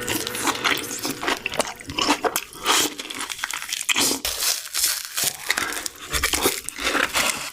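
Lay's potato chips being crunched and chewed, with the crinkle of the chip bag: many irregular sharp crunches.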